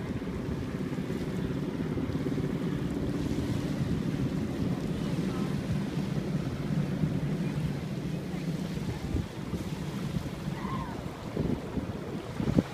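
Wind buffeting the microphone over small waves lapping at the water's edge, with a low steady hum for most of it that fades about two-thirds of the way through. A few sharp knocks near the end.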